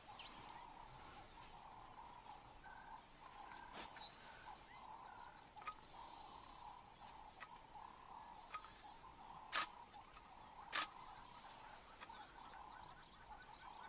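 Evening insect chorus in dry savanna: a steady, evenly pulsing high trill with many small high chirps, faint throughout. Two sharp clicks stand out, about 9.5 and 11 seconds in.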